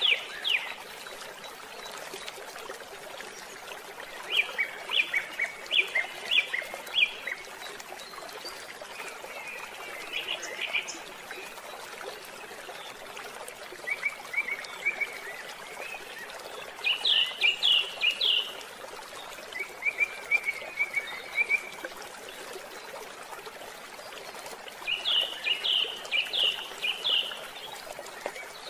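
Birds chirping in short runs of quick repeated notes, one run every few seconds, over a steady hiss.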